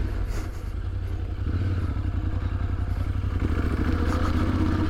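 Adventure motorcycle engine running steadily under way, heard from on the bike.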